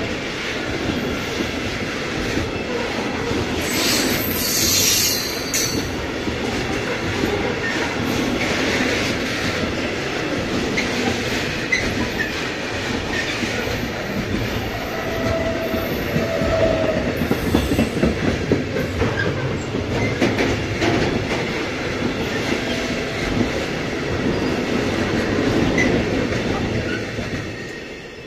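Container freight train wagons rolling past, a steady rumble and clatter of wheels over the rails. A brief high wheel squeal comes about four seconds in, and the sound falls away near the end as the last wagon passes.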